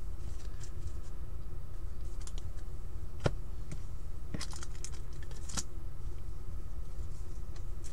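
Trading cards and plastic card holders being handled and set down on a table: scattered light clicks and taps over a steady low hum.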